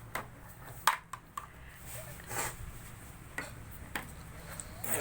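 Eating and table-handling noises: scattered small clicks and taps, the sharpest about a second in, over a steady low hum.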